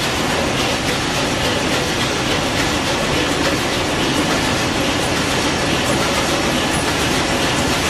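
Large marine diesel engine running steadily, heard up close beside its cylinders: a loud, even mechanical din.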